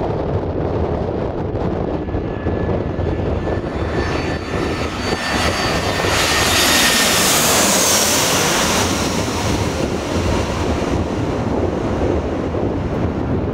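Airbus A320-family twin-jet airliner on final approach passing low overhead. Its engine whine builds from about four seconds in, is loudest over the middle, and a high tone drops in pitch as it goes by before it fades. Strong wind buffets the microphone throughout.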